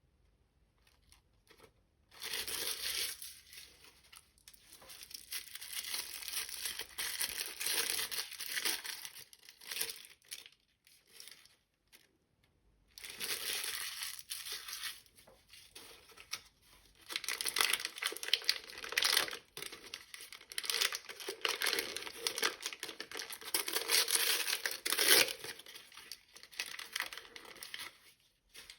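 Plastic toy packaging being unwrapped by hand, crinkling and tearing in two long stretches with a short pause midway.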